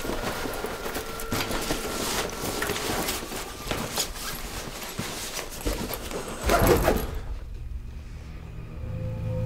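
Rustling, scraping and small clattering of things being handled in a hurry, with a louder burst of rustling about six and a half seconds in. Low, steady music tones come in near the end.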